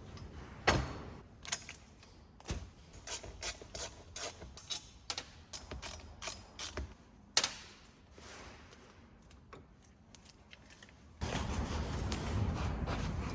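Hand tools and metal parts of a swivel stool clicking and knocking irregularly, a couple of clicks a second, with two louder knocks. Near the end, about three seconds of steady rough noise.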